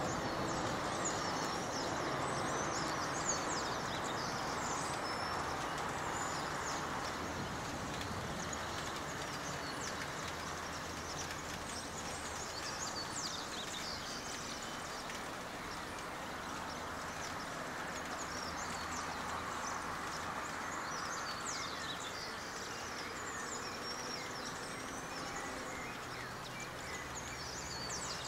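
Many small birds chirping in short, quick calls over a steady outdoor hiss.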